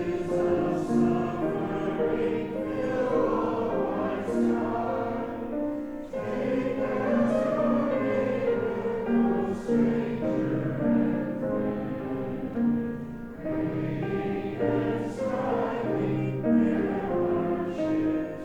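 Congregation singing a hymn together in sustained phrases, pausing briefly between lines about six and thirteen seconds in.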